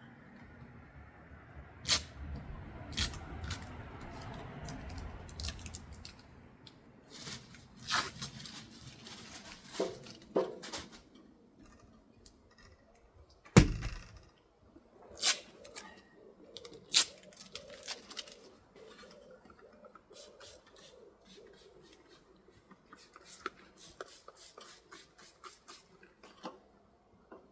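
Scattered clicks, knocks and scrapes of handling work, with one heavy thump about fourteen seconds in and a low rumble during the first few seconds.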